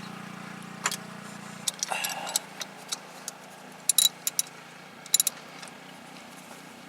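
Scattered sharp metallic clicks and clinks, two of them in quick clusters, with a short scrape, as the oil filter on a Kubota BX compact tractor is being worked loose. A steady low hum runs underneath.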